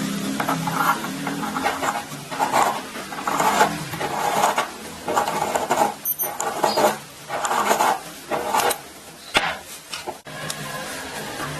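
Repeated scraping or rasping strokes, about one a second, with a couple of sharp clicks near the end.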